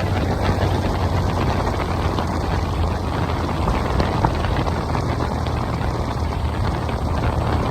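Motorcycle running at a steady cruise, its engine a steady low drone under heavy wind buffeting on the microphone. The harsh, screeching part of the noise is wind on the microphone, not the bike.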